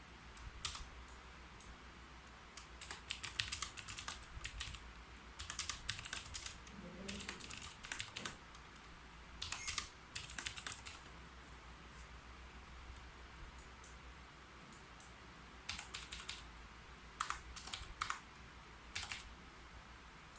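Typing on a keyboard: quick runs of keystrokes in bursts of a second or two, with short pauses between them and a longer lull a little past the middle.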